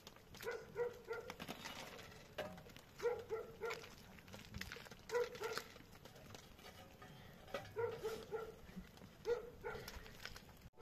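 A dog barking in quick bursts of two or three barks, five bursts about two seconds apart.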